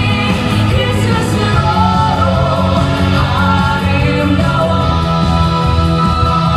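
Loud stage-show music with singing over a steady, pulsing beat, played to accompany a dance number.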